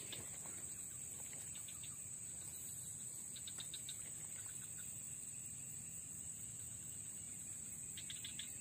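Steady high-pitched drone of insects such as crickets or cicadas, with a few short chirps scattered through.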